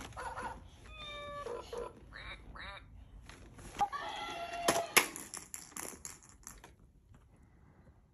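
An infant's high-pitched squeals and babbling, with a few sharp knocks of plastic toys about halfway through.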